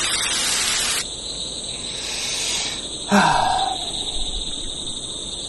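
Steady high-pitched chirring of night insects, crickets, with a burst of TV-static hiss during the first second. About three seconds in comes a short vocal sound that falls in pitch.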